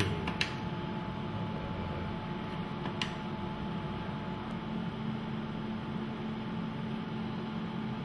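Steady machine hum of a running ultrasound scanner, with a thin steady high tone over it and a couple of short soft clicks from its controls, about half a second and three seconds in.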